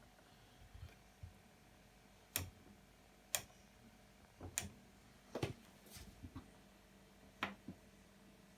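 Hotpoint washing machine giving a string of sharp, irregular clicks, roughly one a second, over a faint steady hum.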